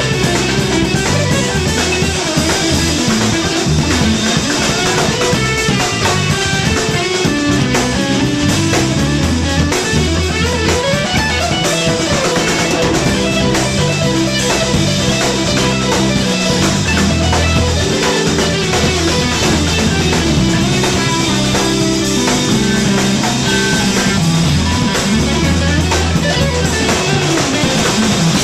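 A live rock trio playing an instrumental passage: electric guitar, electric bass and drum kit, loud and continuous.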